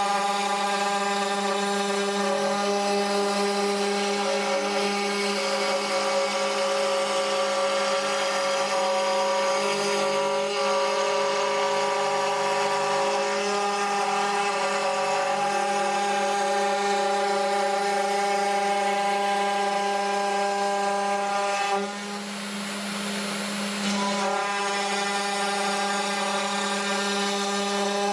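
Small desktop CNC milling machine running, its spindle giving a steady, even-pitched whine as it mills. Near the end the sound drops for a couple of seconds and the whine fades, then it resumes.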